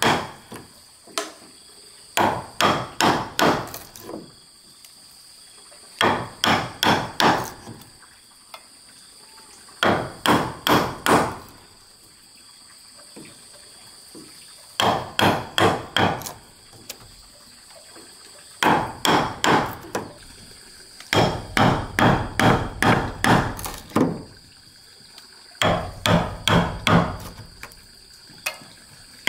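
Wooden mallet striking a wood chisel as it cuts into a timber beam: short runs of four to seven sharp knocks, about three a second, with pauses between the runs. A steady high insect drone runs underneath.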